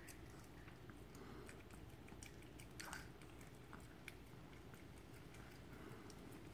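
Faint, irregular wet clicks and smacks of a chihuahua's tongue rapidly licking peanut butter off a wooden floor.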